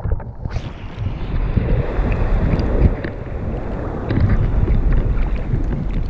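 Sea water sloshing and splashing around a camera held at the surface in shallow water, a continuous muffled churning heard through the camera's waterproof housing.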